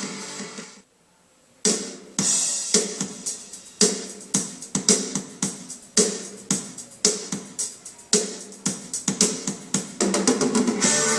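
Music played loud through a Sony CFD-S70 compact boombox's speakers. One song fades out and stops under a second in. After a brief silence a new track opens with a steady drum beat, and fuller instruments join near the end.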